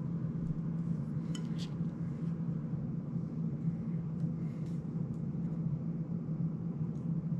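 A few light clicks and clinks as fingers handle the plastic frame and small parts of an FPV drone, the clearest about one and a half seconds in, over a steady low hum.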